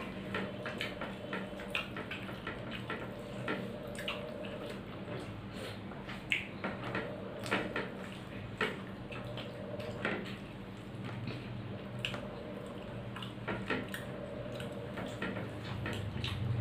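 Close eating sounds: fingers mixing rice and fried food on a plate and chewing, heard as many small irregular clicks and squishes. A steady low hum runs underneath.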